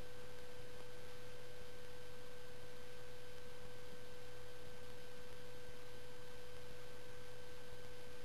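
A steady, unchanging electrical hum with a constant pure tone over a background hiss, with no other sound.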